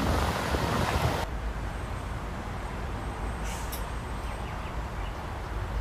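Rushing noise of wind and rain on a wet motorway, which cuts off about a second in to the low, steady rumble of lorry engines idling in a stopped queue.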